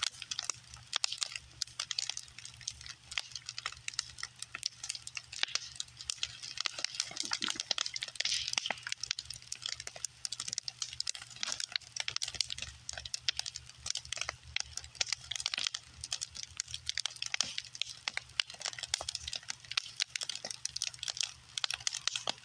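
Bonfire of scrap lumber boards burning, the wood crackling and popping with dense, irregular sharp snaps.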